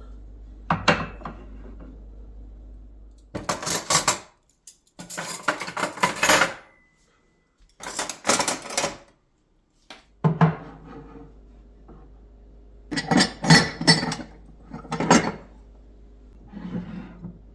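Dishes and cutlery clinking and clattering as they are handled and set down, in several short spells with brief dead gaps between them.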